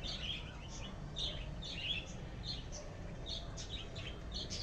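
Small birds chirping, a steady run of short high chirps, several a second.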